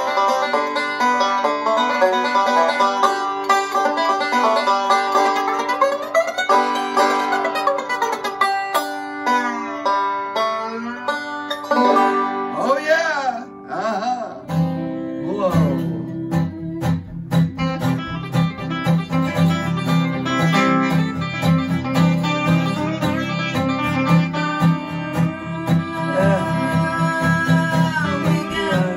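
Banjo picking a bluegrass-style tune, with several notes bending up and down in pitch. About halfway through, an acoustic guitar comes in underneath with a strummed bass-and-chord accompaniment while the banjo keeps picking.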